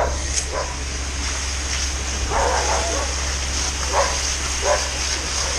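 A dog barking in short bursts, about five times, over a steady low hum.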